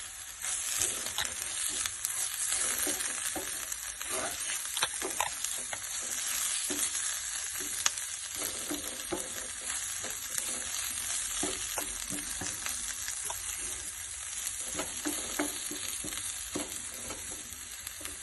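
Ivy gourd slices and onion paste sizzling in oil in a kadai as coriander and garam masala powders are stirred in. A spatula scrapes and knocks against the pan in irregular clicks over the steady sizzle.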